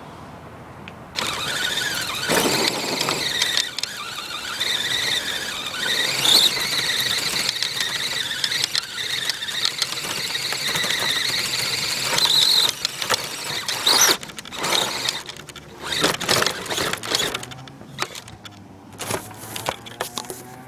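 An RC car's drive motor and gears whining high as it drives, the pitch wavering with speed. About two-thirds of the way through, the whine breaks into short spurts mixed with knocks and rattles.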